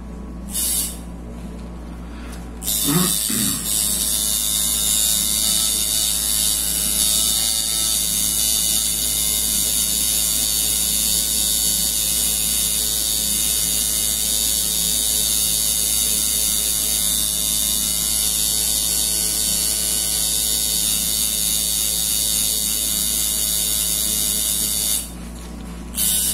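Tattoo machine buzzing steadily while shading synthetic practice skin. It starts about three seconds in and stops shortly before the end.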